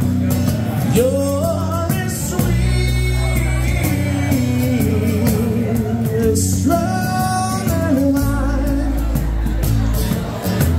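Live acoustic band playing a slow ballad: acoustic guitar, electric bass and cajón under a sung vocal line with sliding, held notes.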